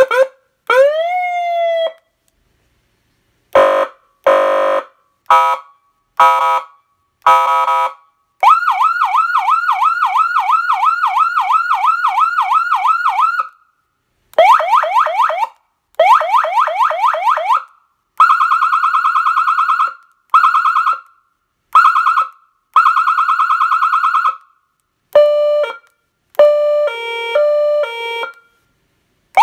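200-watt electronic police siren stepping through its tones one after another with short gaps between: quick chirps and rising whoops, a few short horn blasts, a fast yelp sweeping about three times a second, a steady warbling wail, and a stepped multi-tone pattern near the end.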